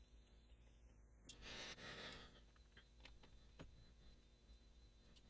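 Near silence. A small click about a second in is followed by a breathy exhale lasting about a second, then a few faint light clicks.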